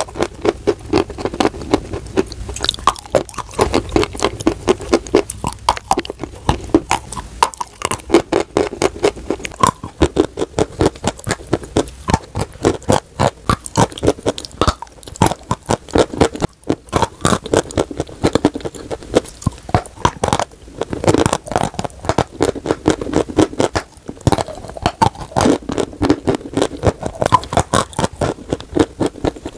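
Close-up crunching and chewing of dry white chalk: a dense run of crisp bites and gritty crunches, several a second.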